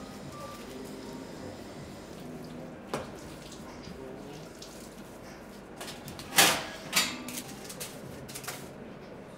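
Food-prep handling sounds: dough worked on a floured stainless-steel table, then a metal spoon scraping meat filling out of a steel tray, with two loud scrapes a little past the middle and a few lighter clicks after.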